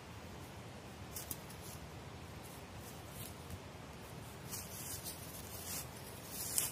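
Footsteps crunching and rustling in dry leaf litter and twigs: several short, scattered crunches, coming more often in the second half.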